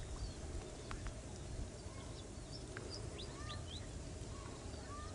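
Small birds chirping: a scatter of short calls, some sliding up or down in pitch, over a faint steady low rumble.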